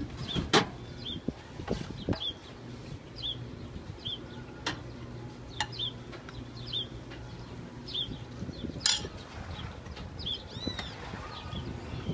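A bird repeating a short high chirp about once or twice a second, with a few sharp clinks of metal serving utensils against a stainless-steel food warmer and tray.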